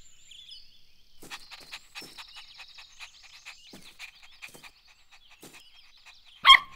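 Faint garden ambience of quick ticking and thin high chirps, then a puppy gives one short bark near the end.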